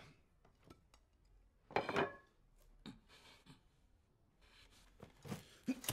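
Quiet scraping and rubbing of cutlery on plates at a dinner table, loudest about two seconds in, with a few sharp clicks near the end.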